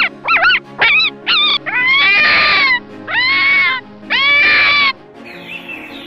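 High-pitched animal calls over background music: four quick cries that swoop up and down in pitch, then three longer drawn-out cries of about a second each. Near the end, short falling bird chirps take over.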